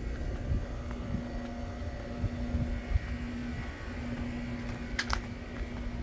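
Outdoor ambience from a handheld camera being carried along: a low rumble of wind and handling noise on the microphone, under a steady low hum that drops out briefly a few times. Two brief high clicks about five seconds in.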